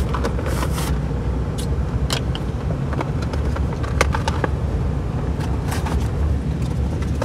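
Steady low road rumble inside a moving car's cabin, with scattered short crinkles and clicks of a Pokémon card pack's wrapper being handled and opened.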